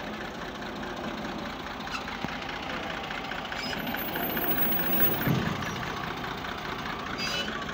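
Massey Ferguson 240 tractor's three-cylinder diesel engine idling with a steady, even knock, and a brief thump about five seconds in.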